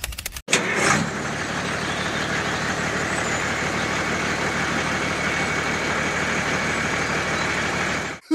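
Truck engine sound effect running steadily. It starts about half a second in and cuts off near the end.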